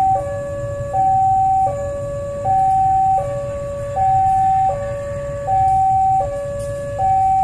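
Railway level-crossing warning alarm sounding a steady two-tone hi-lo electronic signal, each tone held about three-quarters of a second, with a low rumble underneath. The alarm signals that a train is approaching the crossing.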